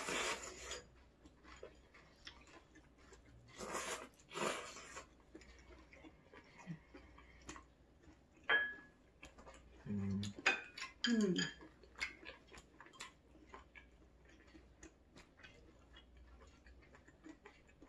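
Eating at a table: chopsticks and utensils tapping and clicking against dishes. There is one ringing clink of tableware about halfway through, and a couple of short noisy scrapes early on and around four seconds.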